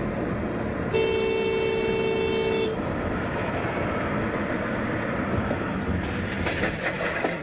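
Car horn sounding one steady blast of about a second and a half over the steady road and engine noise of a moving car, heard from inside it. Near the end come a few sharp knocks and clatter as a motorcycle goes down beside the car.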